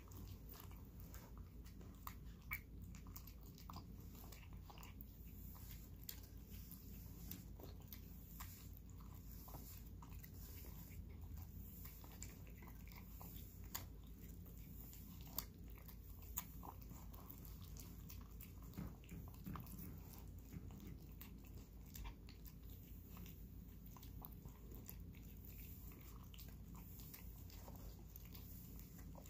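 A cat eating wet paté cat food from a bowl: faint, irregular chewing and lapping clicks, with a few sharper ticks scattered through.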